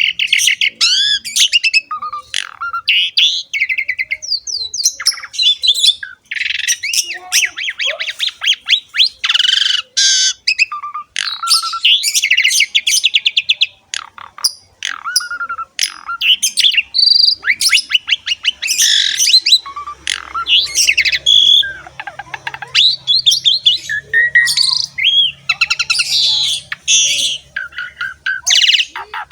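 Pied starling (jalak suren) singing without pause: a rapid, varied jumble of gliding whistles, chattering notes and harsh squawks.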